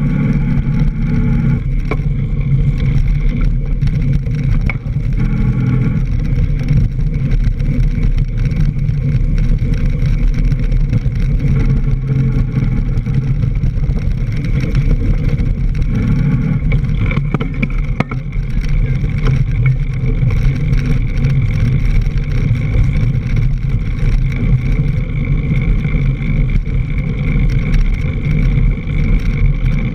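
Mountain bike riding fast over a dirt and leaf-covered trail: steady tyre and wind rumble on a camera mounted low on the front fork, with a few brief knocks from bumps in the trail.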